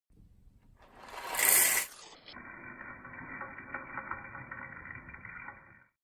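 Coffee beans poured into the hopper of a 1947 Swiss Piccolo coffee grinder, a loud rush for about a second. The grinder's motor then runs steadily, sounding thin like through a small speaker, and cuts off suddenly.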